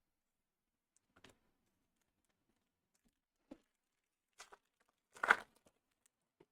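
A few short rustles and tears from a foil trading-card pack being torn open and the cards handled, the loudest tear about five seconds in.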